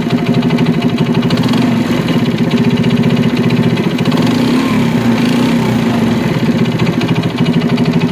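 Single-cylinder four-stroke engine of a China CD70 motorcycle running steadily with a loud, fast knocking rattle, described as a lot of noise from the engine. The mechanic puts the knock down to a worn big end that needs a new connecting rod, as a new timing chain and cam did not cure it.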